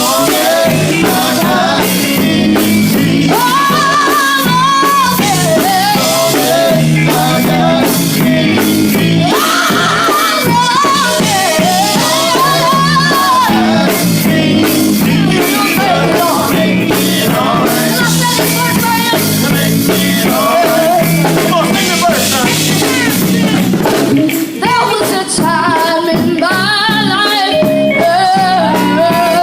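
Gospel group singing live with a band: a lead voice carries a gliding, ornamented melody over drums and instruments.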